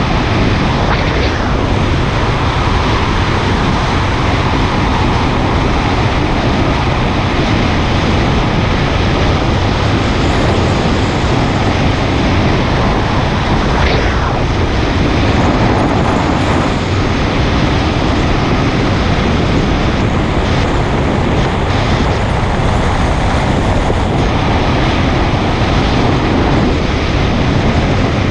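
Steady wind noise on the microphone of a motorcycle riding along at road speed, with the bike's running and road noise underneath.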